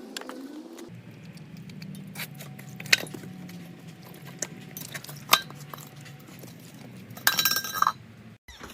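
A few sharp metallic clinks, one near three seconds in and one about five seconds in, then a short, louder clinking jangle about seven seconds in, over a faint low hum.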